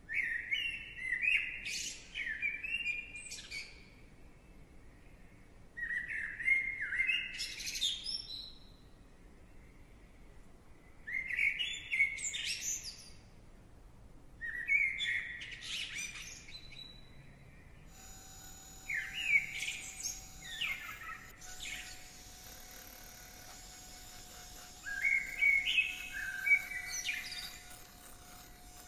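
A songbird singing six separate trilling phrases of two to three seconds each, with quick upward sweeps and pauses of a few seconds between phrases. A faint steady hum and hiss come in about two-thirds of the way through.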